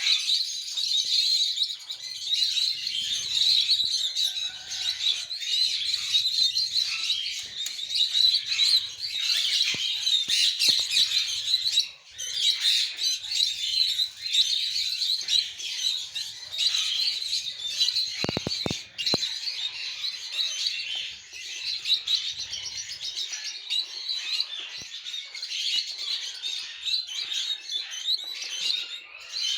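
A group of pet parrots chirping and chattering continuously, many short high calls overlapping, with a few brief knocks a little past halfway.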